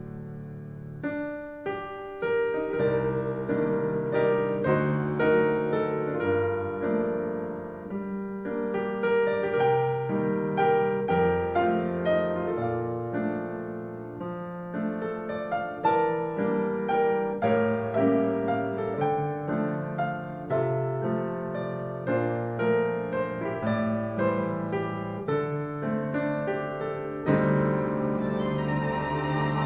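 Piano music played back through Yamaha NS-1000MM loudspeakers, with bowed strings coming in near the end.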